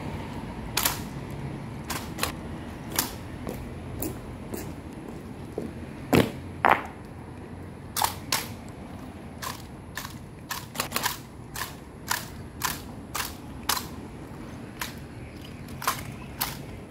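Honor-guard rifle drill: about two dozen sharp slaps and clacks of hands striking and handling wooden-stocked rifles, at an irregular pace, with the loudest pair about six seconds in and a quick cluster about eleven seconds in.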